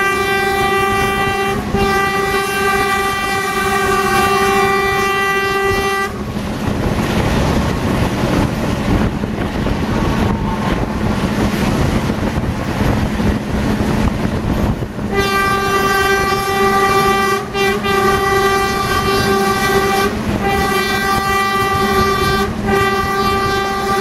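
Train horn sounding a single steady note: one long blast with a brief break early on, then about nine seconds of wheel rumble, then a second long sounding broken by several short gaps. A steady low rumble of the carriage running on the rails lies underneath throughout.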